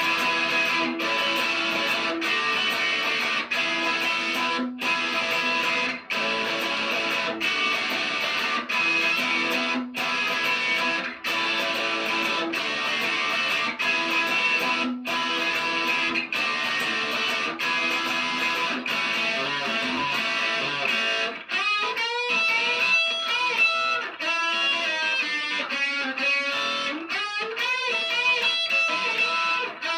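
Electric guitar playing chords, the sound breaking off briefly at each chord change. About two-thirds of the way through it turns to bending, wavering lead notes.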